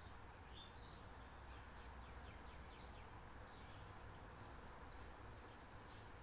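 Faint bird chirps and short trills come and go over a low, steady background hum.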